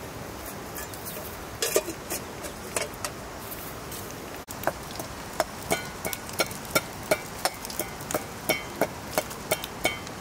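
Hand sickle chopping, regular strikes about three a second with a slight metallic ring, starting about halfway through.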